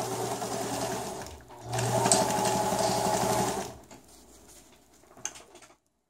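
Electric sewing machine stitching through a thick stack of folded shop towels in two runs, with a short pause between; the second run is louder and stops a little past halfway. A single click near the end.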